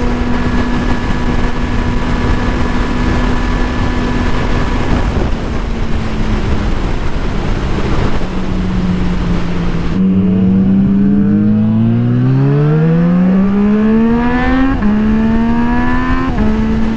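Motorcycle engine running at a steady speed under wind noise, then from about ten seconds in accelerating hard, its pitch rising steeply, with two upshifts near the end where the pitch drops suddenly before climbing again.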